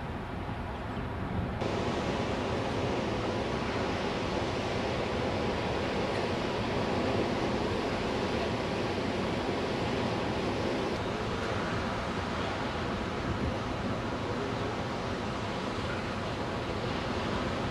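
Ocean surf breaking on a rocky shore: a steady rush of breaking waves. It comes in suddenly louder about a second and a half in.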